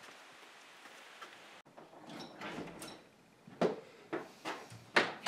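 A door being opened and a person stepping into a small room: a run of sharp knocks and clunks in the second half, the loudest near the end.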